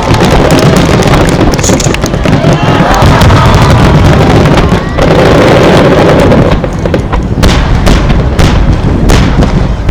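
Fireworks finale: a dense, continuous barrage of shell bursts and crackle, which thins in the last few seconds into separate sharp bangs about twice a second.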